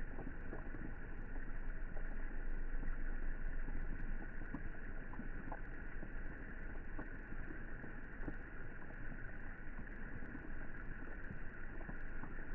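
Rain falling into a swimming pool: a steady, dull rushing of water with scattered small drip ticks.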